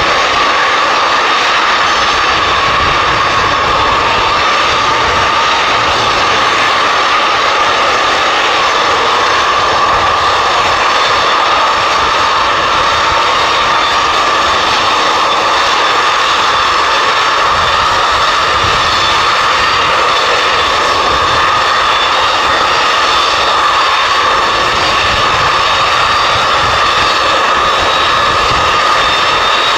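Antonov An-225 Mriya's six Progress D-18T turbofan engines running as the aircraft taxis: a loud, steady jet roar with a high whine held at one pitch.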